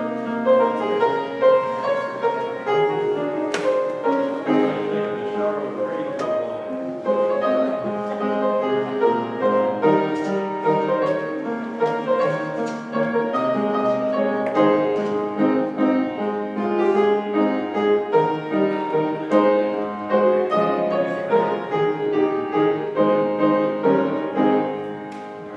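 Instrumental piano music with many sustained notes and chords, fading down near the end.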